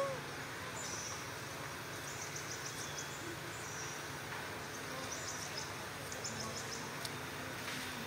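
Forest ambience: a steady hum of insects, with short high rapid chirping trills twice. A brief call sounds right at the start.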